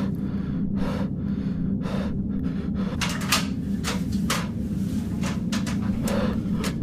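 Footsteps and hand grips on an aluminium loft ladder: irregular soft knocks, about one or two a second, over a steady low hum.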